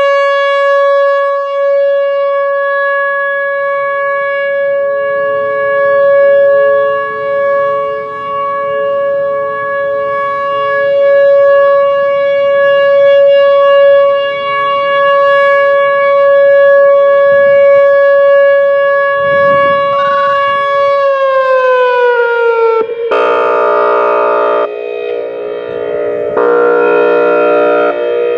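Whelen Vortex R4 electronic outdoor warning siren sounding a steady single-pitch test tone on its 560 Hz setting, with a fainter, lower tone underneath. About 21 seconds in the pitch glides down. Near the end a louder, multi-tone wail comes in twice, with a short break between.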